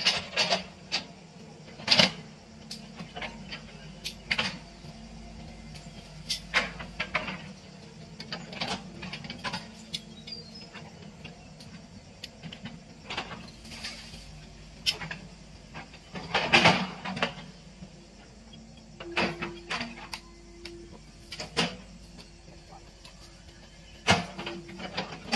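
Hitachi EX120 hydraulic excavator's diesel engine running steadily as the machine works through brush, with repeated sharp cracks and snaps of vegetation giving way, loudest about two seconds in, around the middle and near the end. A higher steady tone joins about three-quarters of the way through.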